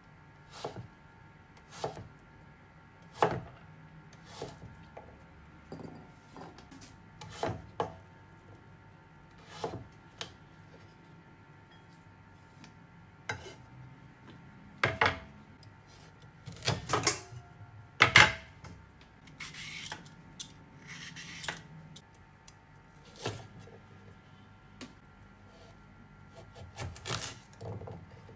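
Kitchen knife chopping daikon radish and carrot on a wooden cutting board: separate knocks of the blade hitting the board, about one every second or two, some in quick runs of two or three. About twenty seconds in there is a couple of seconds of scraping.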